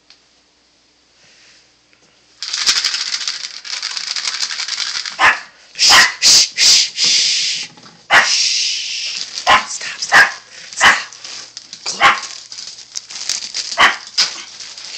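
Small dog barking repeatedly in short, sharp yaps, roughly one a second, over a loud rustling noise that starts a couple of seconds in.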